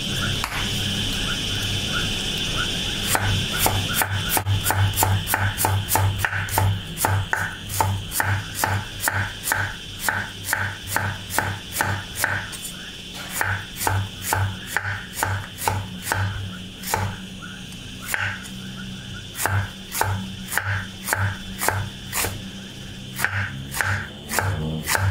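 A cleaver slicing a raw banana blossom on a wooden chopping board. It is a steady run of knife strokes, about two to three a second, each a crisp cut ending in a dull knock on the wood. The strokes start about three seconds in and pause briefly now and then.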